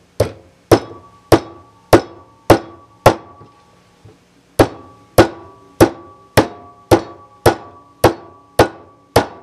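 Hammer tapping metal on the trigger group of a 1953 Savage/Stevens 820B shotgun, bending a cracked part back into shape. The blows come about every half second, roughly fifteen in all, with a pause of about a second and a half near the middle. Each blow is a sharp tap that leaves a short metallic ring.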